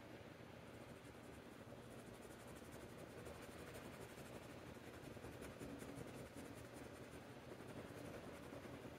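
Faint, steady scratching of a Jinhao metal fountain pen's hooded nib on notebook paper, going back and forth in short strokes to fill in an ink swatch.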